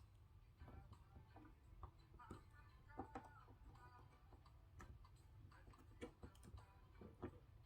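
Near silence with faint, irregular small clicks and taps, typical of small parts and tools being handled on a work surface.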